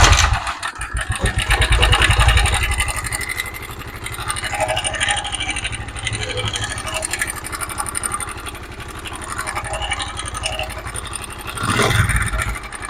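Honda CD 70's single-cylinder four-stroke engine running with loud mechanical noise from inside the engine, revved up about two seconds in and again near the end. The noise comes from a loose timing chain whose tensioner spring has gone soft.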